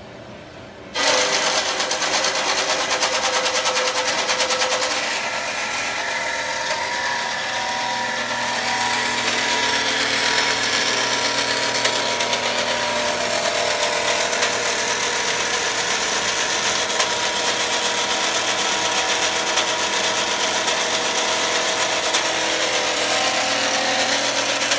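Ellis horizontal metal-cutting bandsaw switching on about a second in and running steadily, its blade cutting through metal stock with a constant whine and hiss.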